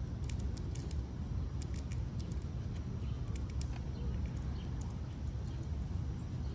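Scattered light clicks and rustles of a squirrel moving through dry leaves and grass, over a steady low rumble.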